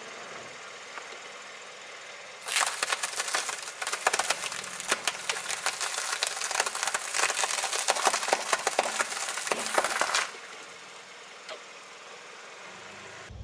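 Car tyre rolling over a row of crispbread crackers and crushing them: a dense run of crunching and cracking that starts about two and a half seconds in and stops about ten seconds in.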